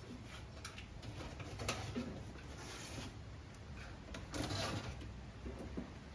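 A cardboard shipping box being handled and opened, with scattered light clicks and short bursts of rustling.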